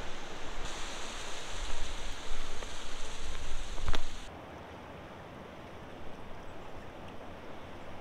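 Steady rush of river rapids. For the first four seconds it is louder, with low rumbling buffets on the microphone and a sharp click, then it drops suddenly to a quieter, even rush of water.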